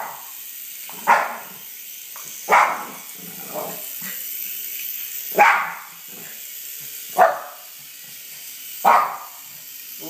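Small dog barking in excited play: five sharp barks spaced a second and a half to three seconds apart, with a softer one after the second. Under them runs the steady buzz of a toy RC helicopter's electric rotor.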